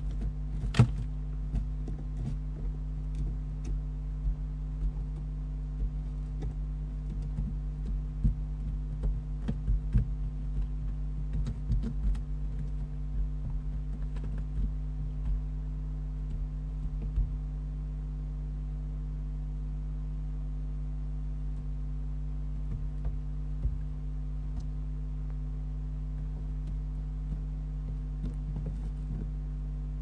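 Barn owl shuffling and scratching in the dry litter of a wooden nest box: irregular small clicks and scrapes, busiest in the first half and mostly gone after about 17 seconds. Under them runs a steady electrical hum.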